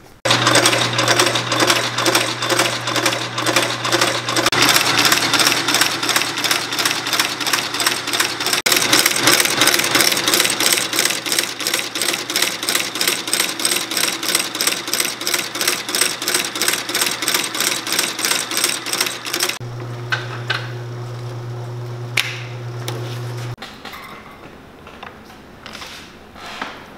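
Sole-stitching machine sewing a leather midsole onto a boot: fast, even stitch strokes over the steady hum of its motor. About twenty seconds in the stitching stops, the motor hums on alone for a few seconds and then cuts out.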